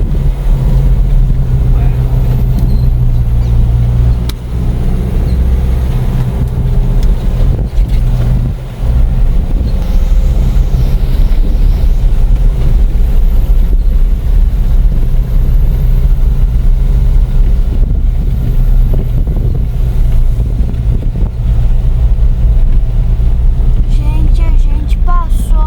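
Motorhome engine running under load as it climbs a steep hill: a loud, steady low drone that dips briefly twice.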